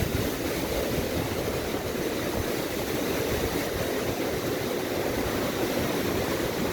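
Strong storm wind buffeting the microphone with a low, fluttering rumble, over a steady roar of heavy storm surf.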